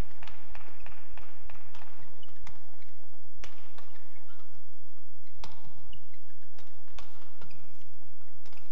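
Badminton rally: sharp cracks of rackets striking the shuttlecock, mixed with players' quick footsteps and brief shoe squeaks on the court floor, the two loudest cracks about halfway through.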